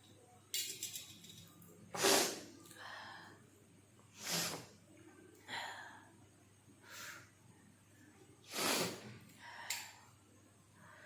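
A woman with a head cold making a series of sharp, breathy sniffs and snorts through her nose, about eight in all, the loudest about two seconds in and again near the end.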